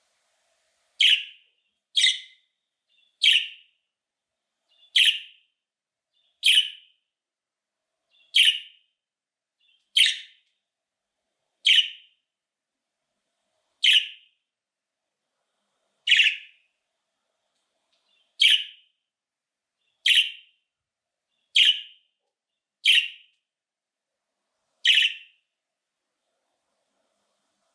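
A budgerigar giving short, sharp contact calls, about fifteen single chirps spaced one to two seconds apart, stopping a couple of seconds before the end.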